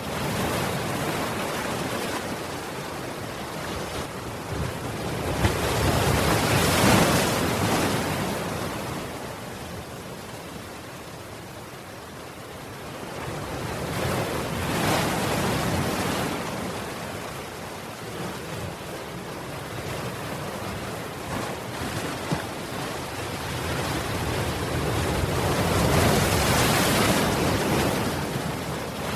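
Ocean surf breaking, a steady wash that swells louder three times, roughly every eight to ten seconds, as each wave comes in.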